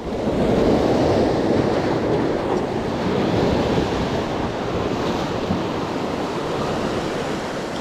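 Sea surf breaking and washing over a rocky shore, a continuous rush of whitewater that is loudest about a second in and then slowly eases.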